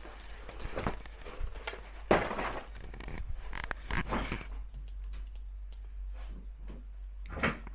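Scattered knocks and clatter of things being handled and moved, with one sharp knock about two seconds in, a cluster around four seconds, and another near the end.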